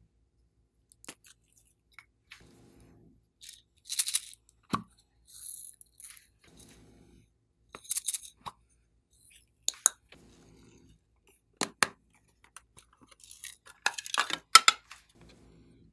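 Handling of plastic makeup containers over slime: scattered clicks, scrapes and short crackles. The loudest bursts come about four and eight seconds in, with a denser cluster near the end.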